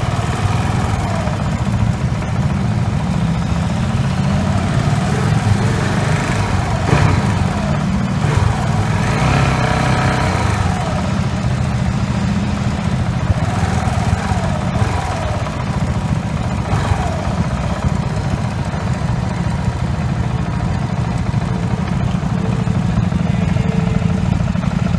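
KTM 690 Duke R's single-cylinder engine running at low speed, heard from on board the bike: a steady low rumble.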